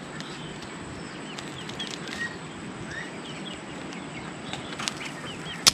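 Rural outdoor ambience with birds chirping repeatedly in short calls, and a sharp snip of scissors cutting a dragon fruit stem near the end.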